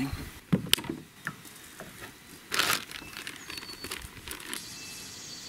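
Fishing tackle being handled while a soft-plastic trailer is taken off a jig: a few light clicks, then a brief crinkling rustle about two and a half seconds in.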